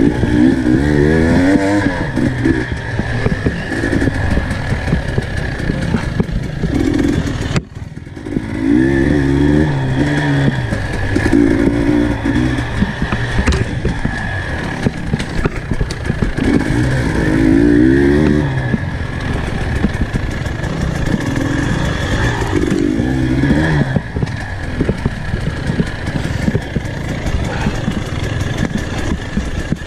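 Dirt bike engine revving up and down as it is ridden, the engine note climbing in short surges every few seconds as the throttle is worked. The sound briefly dips about eight seconds in.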